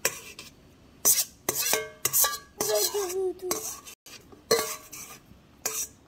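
Metal spoon scraping and clinking against a stainless steel bowl, a run of irregular scrapes and knocks as fruit pulp is scraped out.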